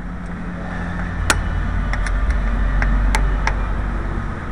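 A hammer taps metal a few times, two sharp strikes standing out about a second and three seconds in, with fainter ticks between, over a steady low rumble.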